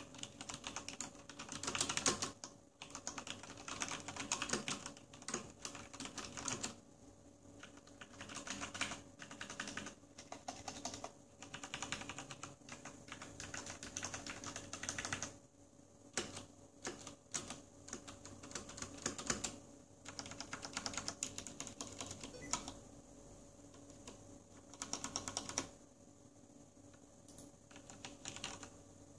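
Typing on a Corsair STRAFE RGB mechanical keyboard with Cherry MX Red linear switches: rapid runs of key clacks in bursts, broken by short pauses.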